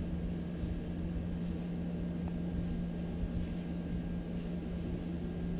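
Wall-mounted air conditioner running with a steady low hum and rumble.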